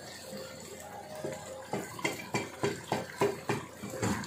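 Wooden spoon stirring and scraping a masala frying in oil in an aluminium pressure cooker. The spoon knocks against the pot about three times a second, starting a little under two seconds in, over a faint sizzle.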